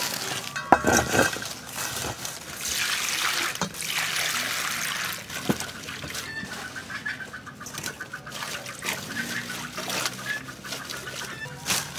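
Rustling and crackling as leafy bunches of longan fruit are handled and set into a metal bowl, with scattered small knocks, busiest in the first half.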